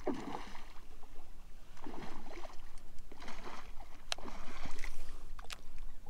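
Paddle strokes in the water from a kayak or paddleboard, a swish about every second and a half, with two sharp clicks in the second half.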